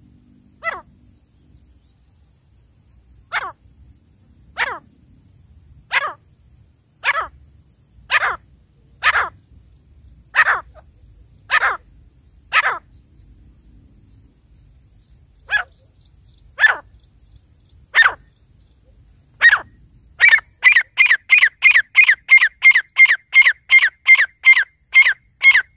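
Grey francolin (teetar) calling: single harsh notes, each sliding downward, a second or so apart. About twenty seconds in they break into a fast, even run of about three notes a second.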